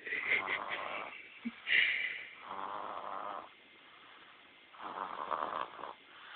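A sleeping baby snoring: three snores about two and a half seconds apart, with a brighter, higher sound just before the second one.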